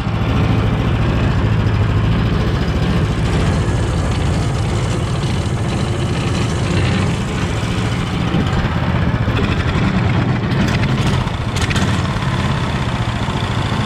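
Predator 420cc single-cylinder four-stroke engine on a mud-motor boat running steadily through its stock exhaust, newly fitted with a stage one jet and air filter. It runs without bogging.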